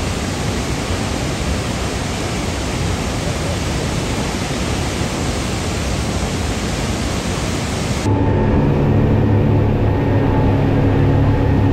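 A steady rushing noise, then about eight seconds in a sudden cut to a louder, steady engine hum.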